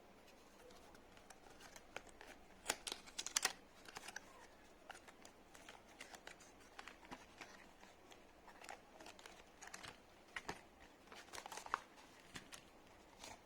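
Faint rustling and crinkling of packaging with scattered small clicks as the mic box's contents are handled and taken out, with louder rustles about three seconds in and again near the end.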